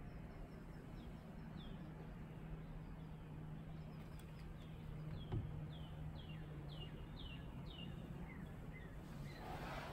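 A bird calling a run of short notes, each sliding downward, about two a second, the later ones pitched lower, over a steady low hum. A single sharp knock comes about five seconds in.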